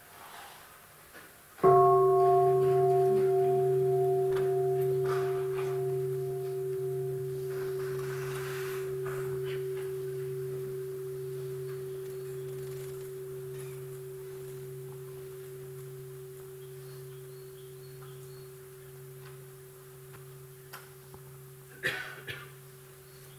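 Buddhist bowl bell (bell of mindfulness) struck once about a second and a half in, ringing with a steady tone and a low hum that fade slowly for some twenty seconds, a pause for mindful breathing. A few faint knocks near the end.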